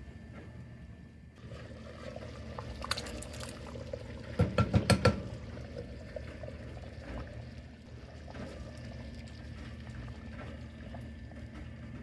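Thick chili being stirred in a pot, with wet sloshing and a quick run of about six sharp knocks of the utensil against the pot a little over four seconds in.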